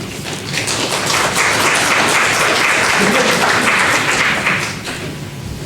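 Congregation applauding a welcomed speaker: steady clapping that swells about a second in, holds, and dies away near the end.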